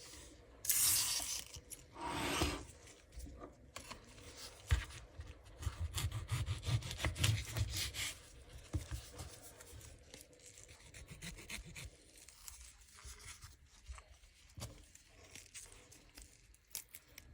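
Kitchen food-preparation sounds, rubbing and scraping. Two loud swishes come in the first few seconds, then a busy stretch of quick scratchy clicks and dull thuds, then quieter intermittent scraping.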